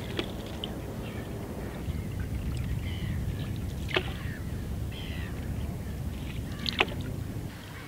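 A canoe being paddled on calm water, with a steady low rush of water and wind. Birds call at intervals, and there are two sharp knocks, about four seconds in and again near the end.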